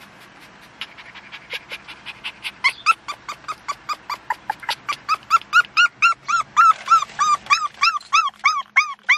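Australian Shepherd puppy crying in a fast run of short, high yelping whines, about three a second, each rising then falling in pitch. The cries start faint and grow much louder from about three seconds in.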